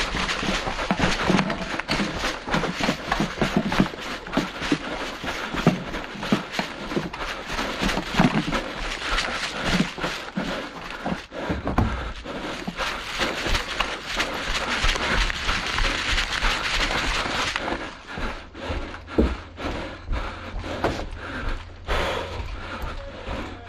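An airsoft player's running footsteps with gear rustling and hard panting breath as he moves across grass; near the end the steps turn to knocks on wooden boards.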